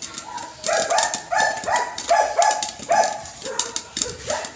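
Corn kernels popping inside a lidded pot, with sharp scattered pops. Over them an animal gives a quick run of about seven short high calls, the loudest sound, fading out near the end.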